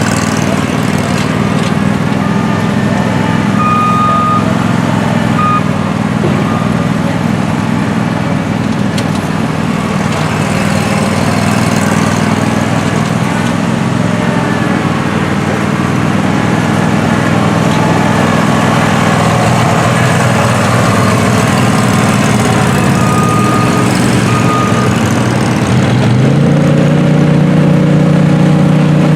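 Country Clipper zero-turn riding mower's engine running steadily, its note stepping up in pitch near the end. Short high beeps sound twice in pairs, once early on the way and once late.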